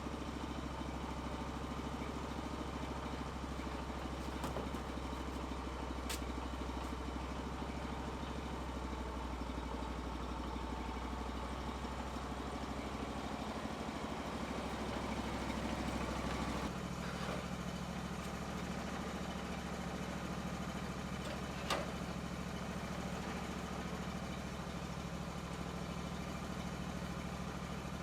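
Engine running steadily, its tone shifting abruptly about seventeen seconds in, with a few faint clicks and one sharp knock a little past twenty seconds in.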